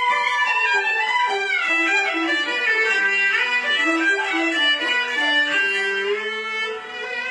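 A bowed fiddle playing a melody with sliding notes; the playing grows softer near the end.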